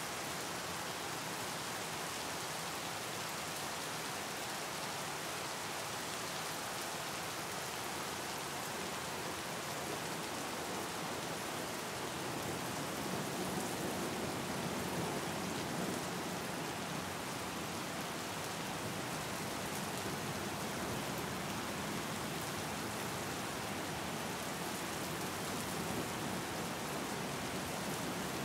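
Steady rain falling onto open water, an even hiss of many small drops striking the surface, a little fuller and louder about halfway through.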